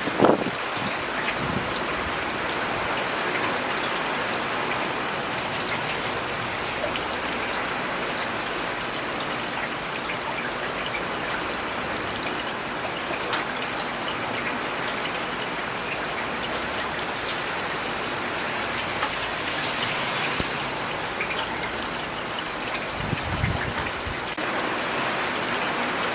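Steady rain falling, an even hiss with scattered louder drops and ticks. A low rumble swells briefly near the end.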